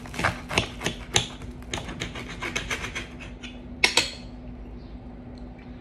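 Knife sawing back and forth through an Italian bread sandwich on a plate: a rapid run of scraping strokes, then two sharp clicks about four seconds in.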